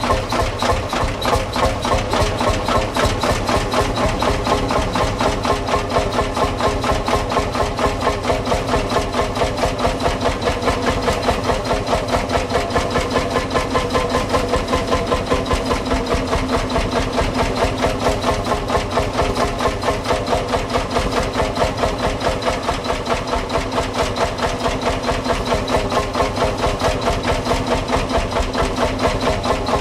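Old farm tractor engine idling steadily, its firing pulses coming in an even, rapid rhythm.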